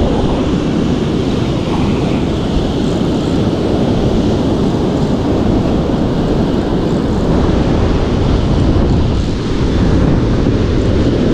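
Surf breaking and washing up a sandy beach, a steady loud rush of waves, with wind buffeting the microphone.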